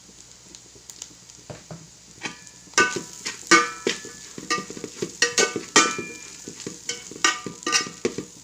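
Stir-frying in a pan: a utensil knocking and scraping against the pan over a light sizzle. The strikes begin about three seconds in and come about twice a second, each with a brief ringing clank.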